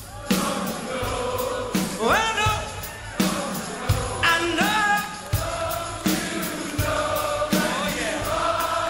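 A song playing: sung vocals with backing harmonies over a steady drum beat.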